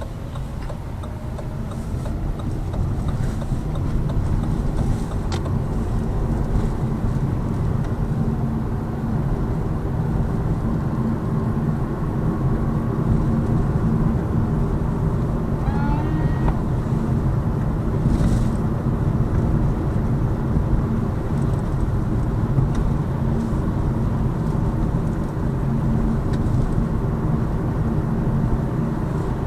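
Inside the cabin of a Lada Vesta Cross driving on summer tyres: steady tyre and road rumble with engine noise. No suspension knock stands out; the driver hears none of the thumping the struts used to make.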